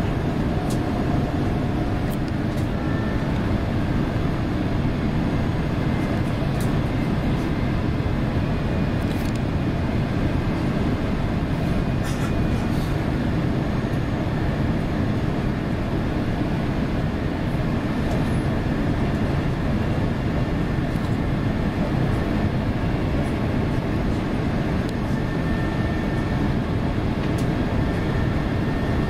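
Steady low rumble of engines and rushing air inside the cabin of an Airbus A350-900 airliner on approach, with a few faint clicks.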